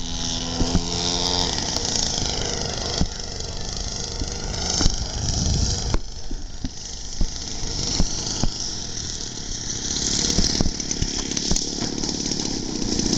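RC Katana model airplane's engine running as the plane flies, its pitch rising and falling.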